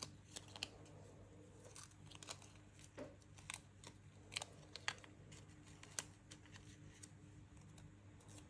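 Faint crinkling and crackling of a paper sticker sheet as small stickers are peeled off their backing, with scattered soft clicks.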